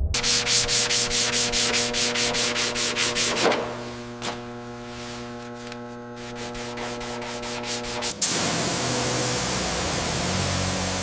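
Sandpaper being worked in quick back-and-forth strokes over car body metal during bodywork, the strokes thinning out midway. About eight seconds in, a steady hiss starts suddenly.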